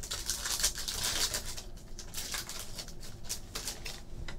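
Cardboard trading cards being slid and flipped one behind another in a hand-held stack, a run of quick papery swishes and flicks, busiest in the first couple of seconds.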